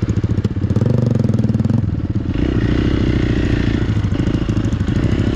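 Hero XPulse motorcycle's single-cylinder engine revving under throttle. The revs climb about a second in, drop briefly near two seconds, then rise again.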